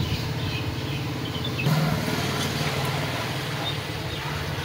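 A motor engine running steadily with a low hum, a little louder from about a second and a half in.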